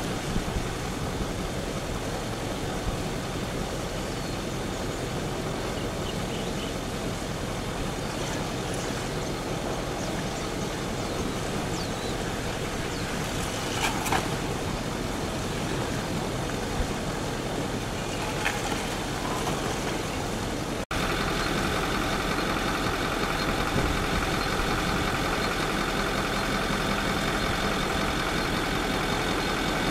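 Advancing 'a'ā lava flow and the vegetation it sets burning: a steady rushing noise with a few sharp cracks about 14 and 18 seconds in. An abrupt cut about 21 seconds in brings a slightly louder steady hum of constant pitch.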